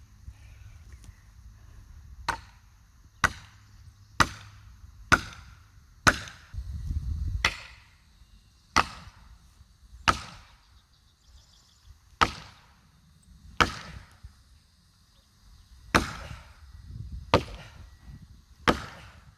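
Felling wedges being driven with an axe: about thirteen sharp, ringing blows, roughly one a second, the gaps growing longer in the second half. There is a low rumble between two of the blows.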